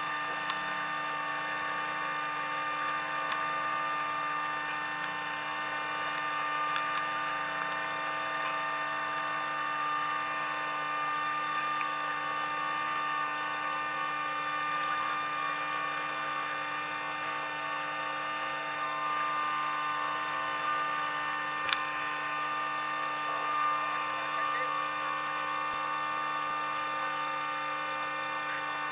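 Outrigger boat's engine running steadily underway, a constant drone with no change in pitch.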